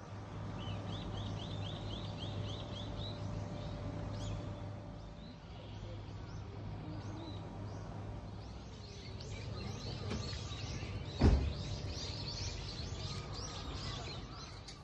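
Outdoor ambience of small birds chirping in quick repeated series over a steady low hum, with a single thump about eleven seconds in.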